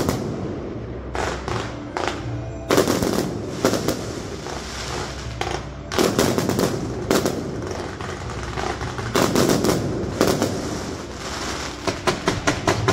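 Fireworks going off, aerial shells bursting in a series of sharp bangs, with a quick run of cracks near the end.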